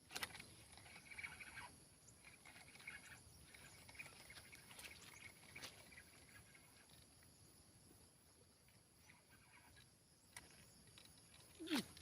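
Near silence: faint outdoor ambience by a lake, with a steady high hiss, scattered soft clicks and a brief falling sweep near the end.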